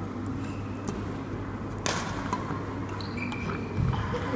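Badminton rally: a loud, sharp crack of a racket striking the shuttlecock about two seconds in, then short squeaks of shoes on the court floor and a low thud near the end, over a steady low hum.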